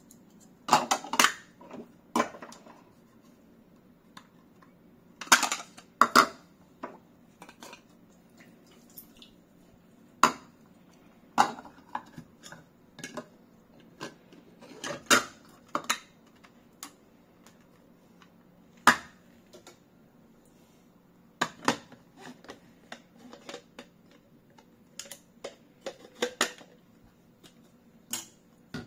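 Hard plastic juicer parts clacking and knocking as they are handled and fitted together, the strainer basket going into the juicing bowl. Irregular sharp clicks, a few every couple of seconds, over a faint steady hum.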